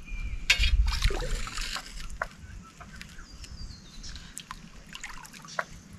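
Shallow floodwater splashing and sloshing as a poly pipe weighted with a steel star picket is plopped in and settled on the bottom, loudest in the first couple of seconds, then softer small splashes and drips from hands moving in the water.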